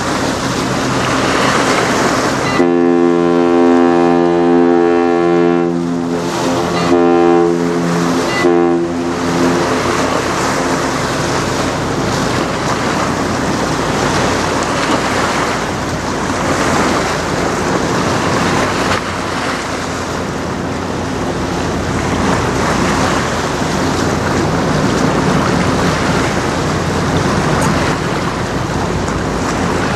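A lake freighter's deep horn sounds about three seconds in, one long blast that breaks into a couple of shorter blasts before stopping about ten seconds in. Wind buffets the microphone and water laps throughout.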